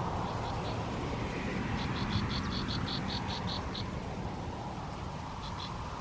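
A small animal chirping: a quick run of about ten short high chirps, about five a second, lasting about two seconds, with a few fainter chirps near the start and two near the end, over a steady low outdoor rumble.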